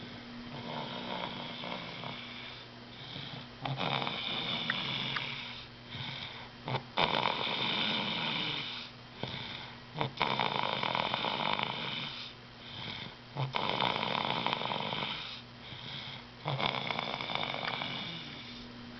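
A man snoring loudly in his sleep, each rasping snore repeating about every three seconds with quieter breaths between.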